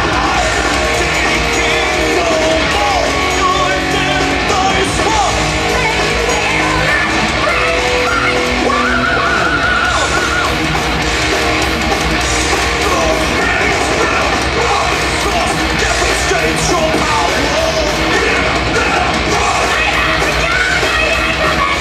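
A heavy metal band playing live at full volume, with electric guitars, bass and drums and a singer's vocals over them, heard from the audience in a large hall.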